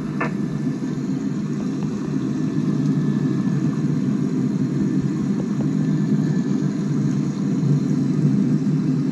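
Steady low rumble of jet airliner engines, swelling a little in the second half.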